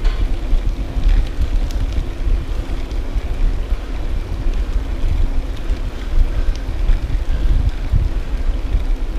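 Wind buffeting the microphone of a camera carried on a moving bicycle: a loud, uneven low rumble, with a faint steady hum underneath and a few light ticks.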